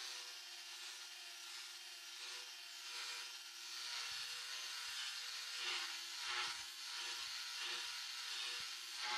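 Angle grinder with an abrasive disc grinding the steel blade of an antique billhook, the motor whining steadily under a hiss of grinding. In the second half the grinding swells louder several times as the disc bites harder into the steel.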